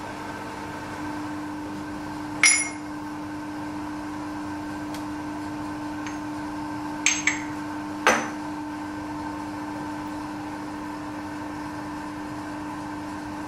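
Steady hum of the workshop machinery, broken by sharp ringing metal clinks as the cast metal plates are handled and knocked against the vise: one about two and a half seconds in, then three close together around seven to eight seconds in.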